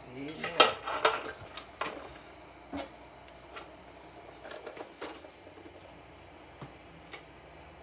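Kitchen clatter: a series of knocks and clicks from pots and dishes being handled. The loudest two come about half a second and a second in, followed by scattered lighter taps.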